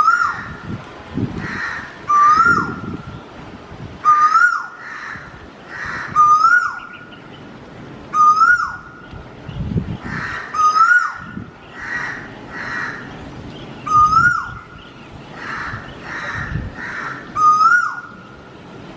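Peacock calling: a loud, rising-then-sharply-falling cry repeated about every two seconds, ten times in all, with fainter bird calls in between.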